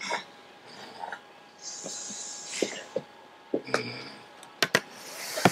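Scattered knocks and taps, with rustling and a baby's breathy snorts; the sharpest knocks come in a cluster near the end.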